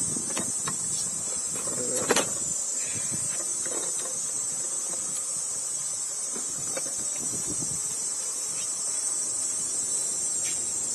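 Steady, high-pitched chorus of summer insects, with a brief knock about two seconds in.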